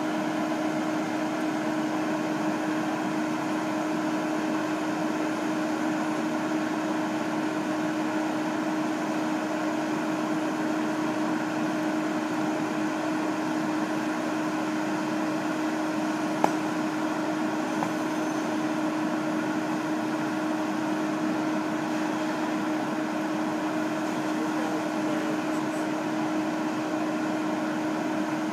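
Steady mechanical hum with a constant tone, unchanging throughout, and a single sharp click about sixteen seconds in.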